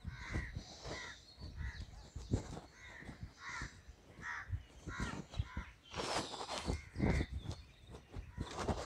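Crows cawing over and over, short harsh calls about once or twice a second, with low irregular thumps from footsteps and the handheld phone as the camera walks.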